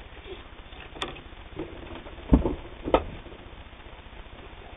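A few separate handling clicks and knocks, the loudest a dull knock past the middle, as a piece of flannel is set under the needle of a Singer 328K sewing machine.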